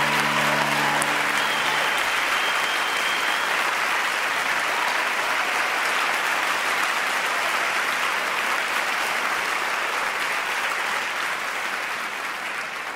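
Audience applause, a steady mass of clapping that fades away near the end. The orchestra's last held chord dies out in the first couple of seconds.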